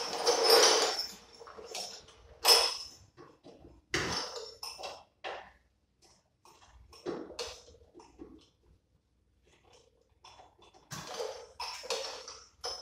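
Metal hand tools clinking and clattering: wrenches and sockets knocked together in the tool tray and against the front wheel hub, in scattered knocks with brief ringing, loudest at the start and about two and a half seconds in.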